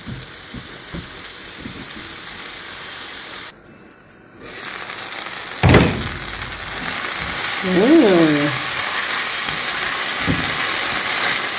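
Chopped onions and tomatoes sizzling in a frying pan while a spatula stirs them, with a single sharp knock about six seconds in.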